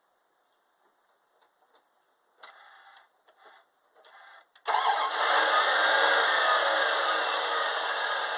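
Dodge engine being cranked by its starter in three short bursts, then catching about four and a half seconds in and running steadily.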